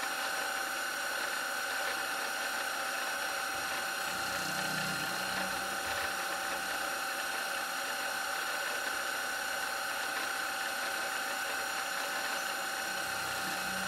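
CNC milling machine spindle running steadily, its end mill cutting a white Delrin workpiece turned in the 4th axis: a constant whine of several steady tones over an even hiss.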